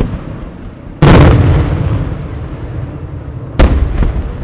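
Two loud aerial firework shell bursts about two and a half seconds apart, each a sharp boom followed by a long rolling echo.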